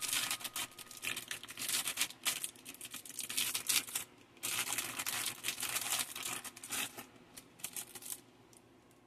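Thin clear plastic bag crinkling and crackling as gloved hands work it open, with a short lull about four seconds in; the crinkling stops about a second before the end.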